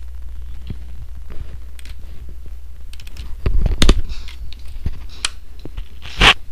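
Scattered clicks and knocks over a steady low hum, with a louder cluster of knocks about three and a half seconds in and a short loud burst of noise near the end.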